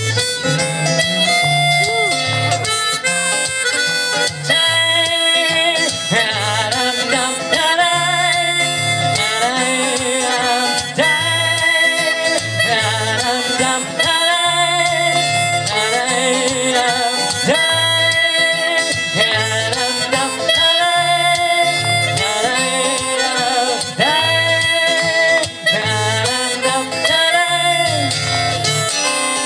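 Harmonica playing a continuous melodic line with bent notes over a steady rhythmic accompaniment, as live music.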